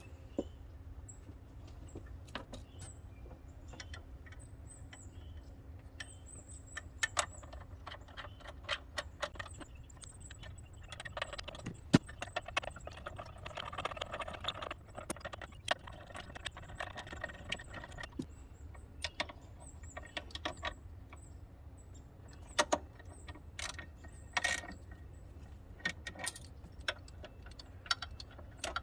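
Metal hand tools clicking, clinking and knocking at irregular intervals, with a stretch of denser rattling in the middle.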